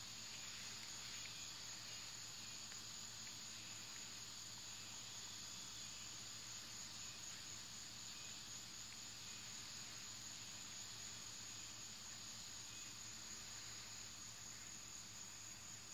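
A steady chorus of crickets: one high, finely pulsing trill that holds its pitch.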